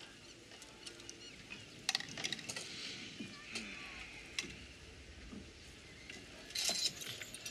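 Scattered light clinks and clicks of small hard objects being handled, over a soft rustle, with a quick cluster of clinks near the end.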